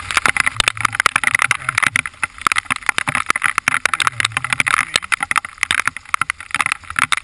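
Heavy rain hitting a helmet-mounted microphone during a motorcycle ride, a dense, continuous crackle of drops, with a motorcycle engine running low underneath.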